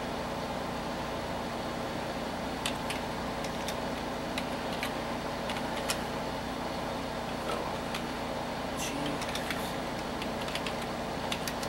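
Computer keyboard keys clicking as short DOS commands are typed, in two runs of keystrokes, the first about three seconds in and the second near the end. Underneath is the steady hum of the old 486 PC's fans.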